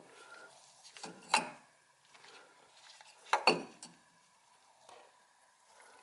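Hands working a new oil filter into place under a car: two sharp knocks against metal, about a second and a half in and again about three and a half seconds in, with a few lighter taps and faint rubbing between.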